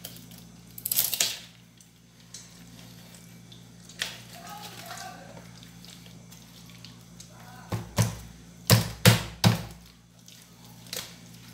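Large kitchen knife cutting up a raw chicken on a wooden cutting board. There is a short scraping cut about a second in. Near the end comes a quick run of about five sharp knocks as the blade chops down through the meat onto the board.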